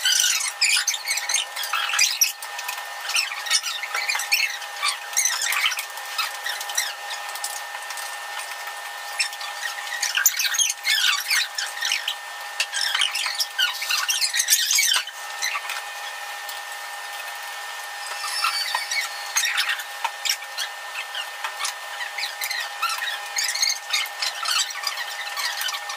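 Spoons and forks clicking and scraping on plates during a meal, in many short sharp clicks and squeaks, over a faint steady tone.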